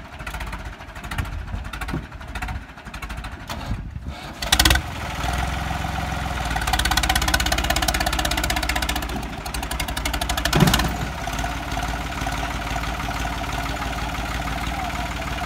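Diesel engines of two tractors, a New Holland 3630 and a Sonalika 750, running hard under heavy pulling load in a tug-of-war. There is a sharp knock about four and a half seconds in and a loud thump about ten and a half seconds in.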